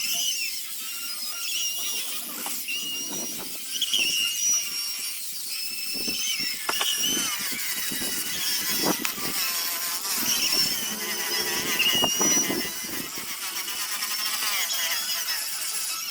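Sanding a zelkova wood basket with abrasive paper: a steady scraping hiss with high squeals that bend up and down in pitch, and a few louder scraping strokes.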